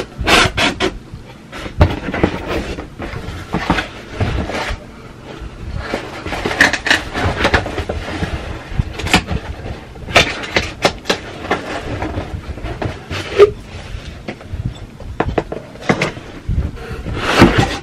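A cardboard shipping box being handled and opened: scraping, tearing and rustling of cardboard and packing tape, with scattered knocks and thumps.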